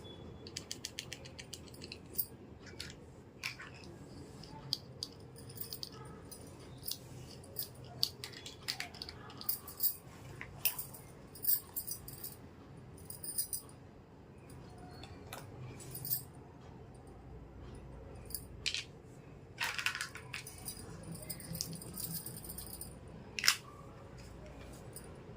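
Small plastic toy pieces being handled: scattered light clicks, taps and rattles, with a quick run of clicks near the start.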